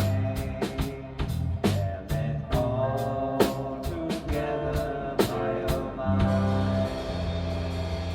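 A rock band playing: electric guitar, bass guitar and drum kit. The drum strokes stop about six seconds in, leaving a held chord with a cymbal wash ringing on.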